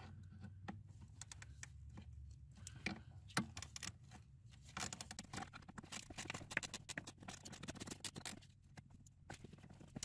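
Faint clicking and scraping of a tool and gloved hand working the 10 mm bolt out of the brake light switch bracket, the clicks thickest from about five to eight seconds in.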